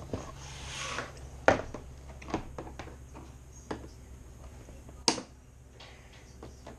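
Scissors snipping and scraping at the tape on a cardboard toy box, with a few sharp clicks and knocks as the box is handled on a table. The loudest knocks come about one and a half seconds in and again about five seconds in.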